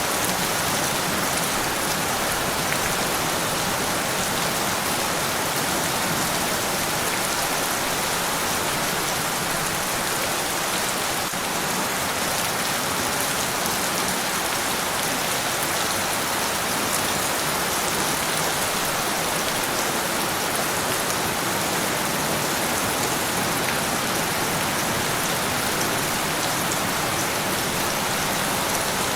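Steady rain falling and pattering on a surface, an even hiss with fine drop ticks that does not change.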